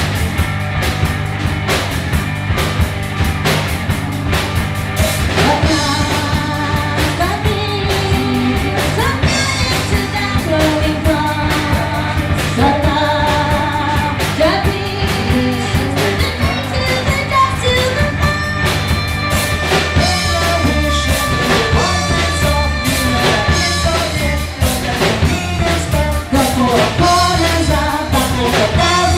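Live rock trio playing: drums, bass guitar and electric guitar, with a voice singing over them.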